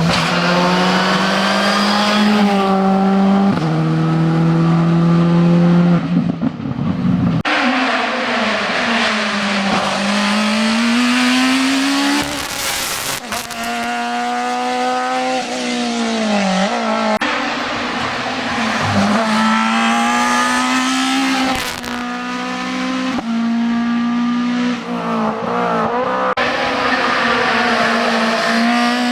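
Racing cars at a hillclimb accelerating hard through the gears, one after another. Each engine note climbs, drops at an upshift and climbs again.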